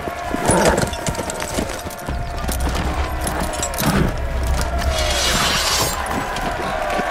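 Film sound of a tournament crowd shouting and screaming, with two sudden heavy impacts, the first about half a second in and the second about four seconds in, over a low rumble.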